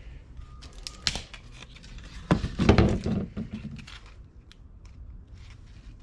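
Handling noise from a thin, freshly demoulded carbon fibre part: crinkling and small clicks, with a louder rustle and knock about two and a half seconds in.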